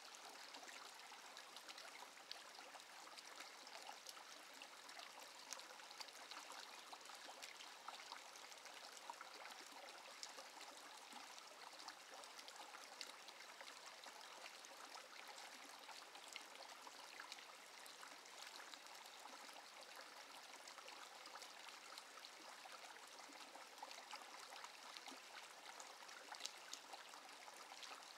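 Small shallow brook trickling over rocks: a faint, steady babble of running water.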